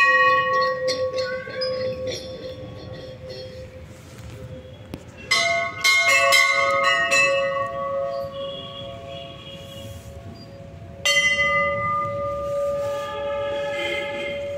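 Hindu temple bells being rung. There is one strike at the start, a quick run of several strikes about five seconds in, and another single strike about eleven seconds in, each leaving a long ringing tone that slowly fades.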